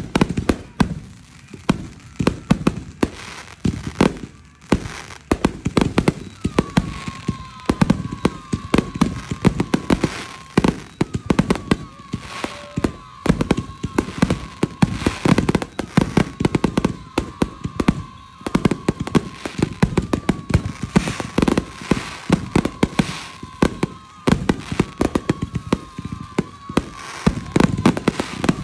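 Fireworks going off in a rapid, irregular run of sharp bangs and crackles. From about a quarter of the way in, a high whistling tone keeps sliding down in pitch over and over.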